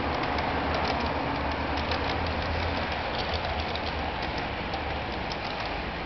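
HO-scale Electrotren Hellasprinter model locomotive hauling a freight train at steady speed under DCC control. Its wheels make a continuous rumble on the model track, with a low motor hum and many light, irregular clicks.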